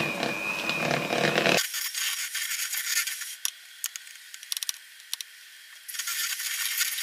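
Electric hand mixer running with a steady whine, beating butter and cream cheese in a glass bowl. It stops after about a second and a half, giving way to light clicks and scraping of a silicone spatula against the glass bowl, and the mixer starts again near the end.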